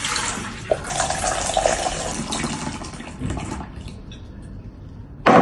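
Water running into a container to make up a brine, a steady rush that thins out and fades about four seconds in. A short click sounds under a second in, and something loud and sudden comes right at the end.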